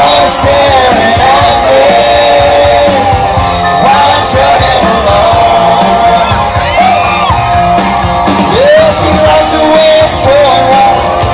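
Live country band playing loudly, with a man singing the lead into a microphone.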